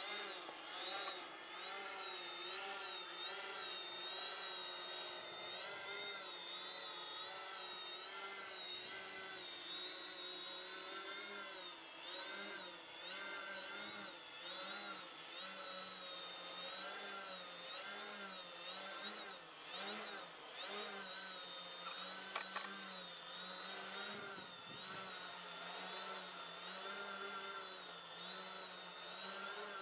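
A hexacopter's electric motors and propellers whine steadily, and the pitch keeps wavering up and down every second or two as the motors speed up and slow down. This is the altitude oscillation of an untuned altitude PID loop that is not holding altitude.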